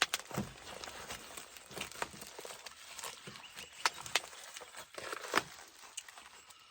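Packaging rustling and crinkling as a parcel is handled and torn open, with irregular small clicks and taps.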